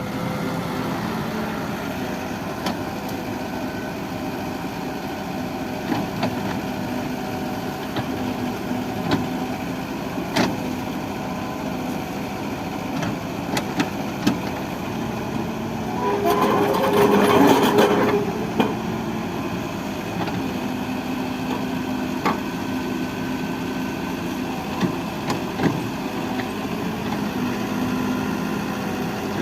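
Excavator's diesel engine running steadily, with scattered short knocks and clanks. A louder surge with a higher whine lasts about two seconds, a little past halfway.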